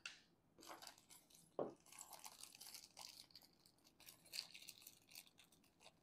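Faint handling noise: loose wires being moved about and small plastic parts rustling and crinkling, with a soft knock about a second and a half in.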